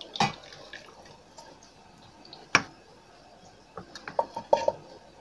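Vegetable oil pouring from a bottle into a pot of chopped vegetables, a faint trickle with a couple of sharp clicks and a short run of knocks about four seconds in.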